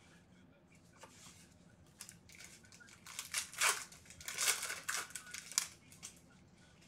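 Foil wrapper of a Bowman Chrome baseball card pack crinkling and tearing as gloved hands open it, in a run of crackly rustles from about two to six seconds in.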